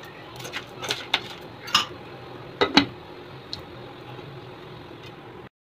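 Popcorn kernels heating in a pan of salt, starting to pop: a scattering of sharp pops and ticks against the pan over a steady low hiss. The sound cuts off suddenly near the end.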